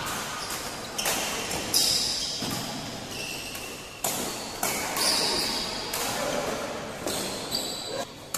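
Badminton rally: sharp racket strikes on a shuttlecock every second or so, with shoes squeaking on the court floor, all echoing in a large hall.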